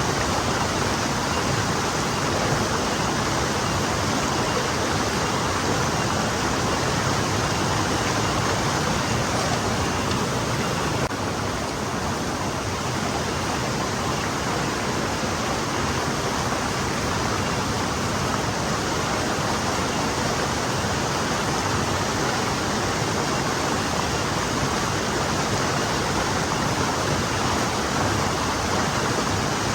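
Forest stream flowing over stones, a steady even rush of water.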